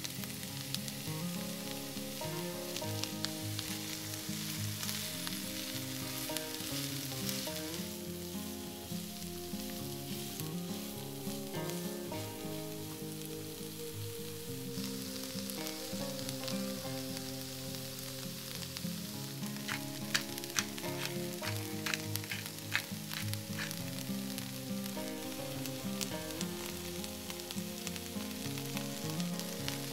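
Sliced onion, carrot and red bell pepper sizzling steadily as they fry in a nonstick frying pan, over a soft melody of background music. A short run of small clicks comes about two-thirds of the way through.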